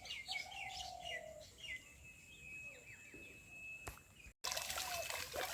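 Small birds chirping: quick runs of short high chirps and a lower falling whistle in the first two seconds, then sparser calls. A single click just before four seconds in, followed by a brief cut after which the background is louder.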